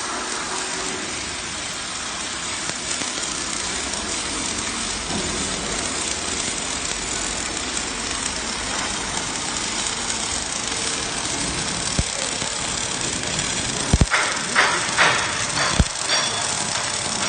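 MIG welding arc crackling and hissing steadily, with a few sharper, louder cracks near the end.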